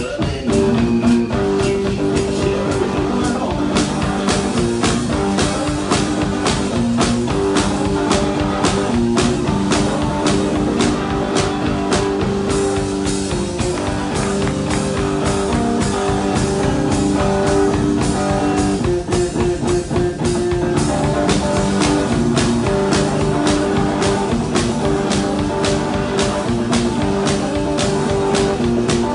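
A one-man band playing live: a guitar riff over a steady kick drum and snare beat in a rock groove.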